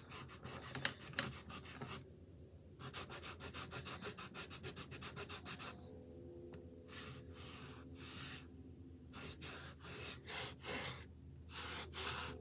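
Felt-tip marker scrubbing back and forth on canvas as a drawing is coloured in: quick, even strokes about five a second from about three seconds in, then slower, separate strokes.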